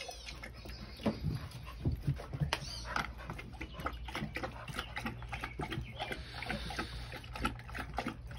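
American pit bull terrier lapping water from a plastic bucket: a quick, irregular run of wet slurping clicks, several a second, over a low steady hum.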